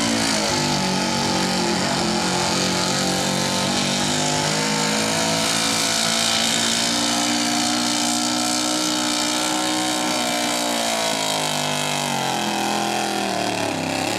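Small-block V8 of a 4x4 pickup running hard at high revs under load as it pulls a weighted sled. The engine note holds fairly steady, rises a little mid-pull, then sags near the end.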